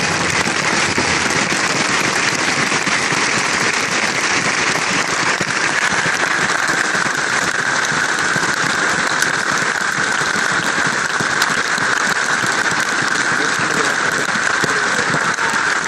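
Large crowd applauding steadily, dense clapping with no break.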